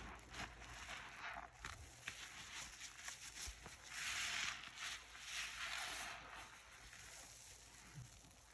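A soap-soaked kitchen sponge being squeezed and wrung by gloved hands in pink sudsy water: wet squelching and crackling foam in several squeezes, the loudest about halfway through.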